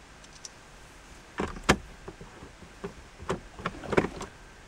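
Screws being fitted back into a car's plastic dashboard trim: a scatter of light clicks and knocks, with a sharper knock about a second and a half in and another near the end.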